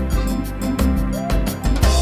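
Music with a steady beat, bass and melody, closing on a final accented hit near the end that then begins to ring out.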